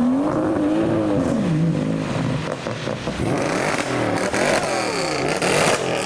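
A BMW 1 Series hatchback accelerates away in the first second, its engine note rising and then dropping. A Mercedes C63 AMG coupe's V8 then revs several times in quick rises and falls as it pulls past, loudest near the end.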